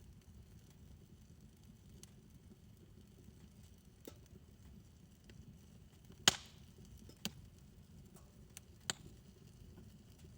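Wood fire in a fire pit burning with a low, steady rumble of flames, broken by a few sharp crackles and pops; the loudest pop comes about six seconds in, followed by three smaller ones over the next few seconds.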